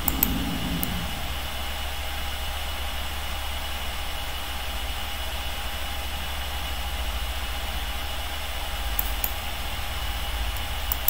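Steady low hum, with a few faint computer mouse clicks near the end.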